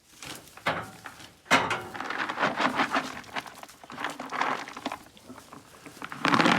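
Sheep shuffling in the straw of an adopter pen: irregular scuffling and rustling, with a louder burst just before the end.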